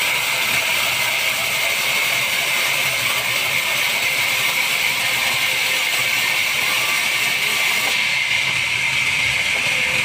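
Horizontal band sawmill blade cutting lengthwise through a log: a steady, loud hiss of the blade in the wood, even throughout, its very top thinning out about eight seconds in.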